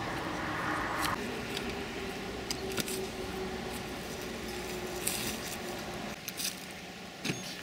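Scattered rustles and short clicks of bags, bicycle gear and clothing being handled, at irregular intervals over a steady background hiss.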